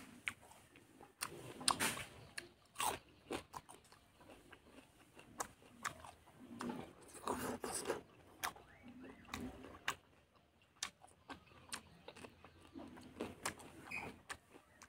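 Close-miked chewing of fatty pork with rice and boiled greens: wet, sticky mouth smacks and irregular crunchy bites, heaviest about two seconds in and again in the middle.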